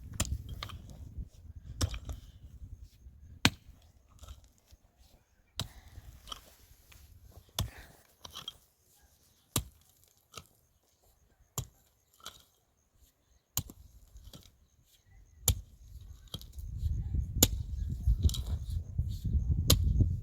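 Sharp single strikes, evenly spaced about every two seconds, like wood being chopped. A low rumble comes in again near the end.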